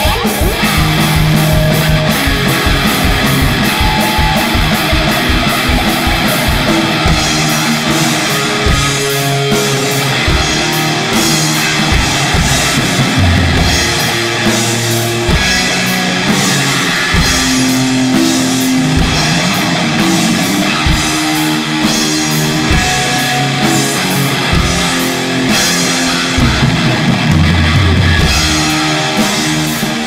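Guitar and drum kit playing loud, heavy rock together, with a burst of fast drum hits at the start.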